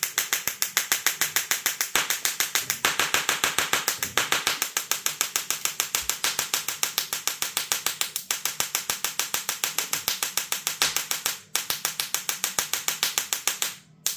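Small solid-state Tesla coil's spark discharge from its needle electrode: a loud, rapid, evenly pulsed crackling buzz. It cuts out briefly twice near the end.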